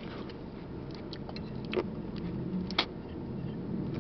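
A toddler chewing, with a few short, sharp mouth clicks and smacks, over a low steady rumble of road traffic.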